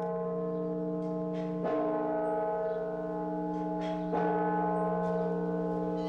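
Church bells ringing. A large bell is struck about every two and a half seconds and its tone hangs on between strokes, with lighter strikes of smaller, higher bells in between.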